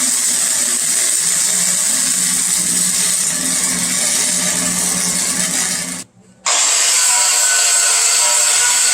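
Flux-core wire welder laying a bead on a steel exhaust pipe-to-muffler joint, a continuous crackling sizzle with a low electrical hum, filling a gap between the pipe and the muffler. The arc stops about six seconds in and restarts almost at once.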